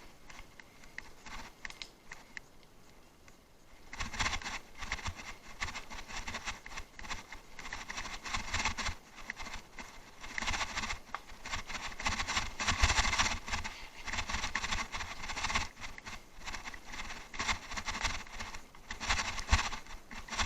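Bicycle riding over rough off-road ground: tyres crunching and scraping and the bike rattling over bumps, starting about four seconds in after a quieter stretch.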